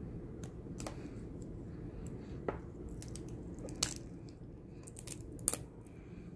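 Small clicks, snaps and crackles of the rubber layers of a Disney MagicBand being peeled and pried apart by hand, with three sharper snaps in the middle and later part, over a steady low background hum.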